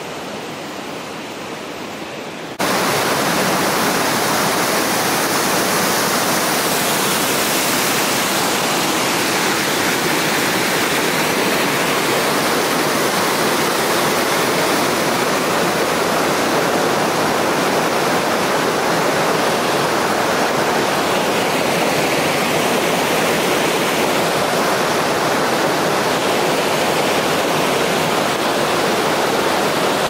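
White water of a rocky mountain stream cascading over boulders: a steady, loud rush that starts suddenly about two and a half seconds in, after a fainter rush of water.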